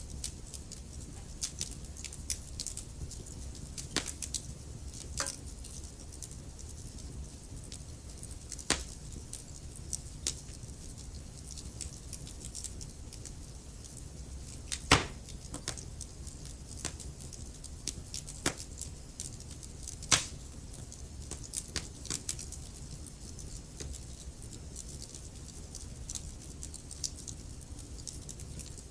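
Wood fire burning in a fireplace: logs crackling with scattered sharp pops over a steady low rumble of the flames, two louder pops about fifteen and twenty seconds in.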